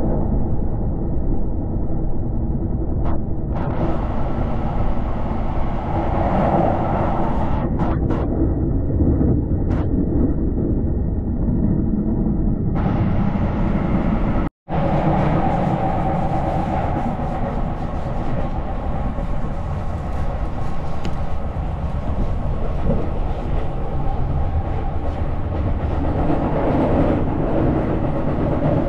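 Electric train running, heard from inside a passenger carriage: a steady rumble of wheels on rails. The sound cuts out for an instant about halfway through.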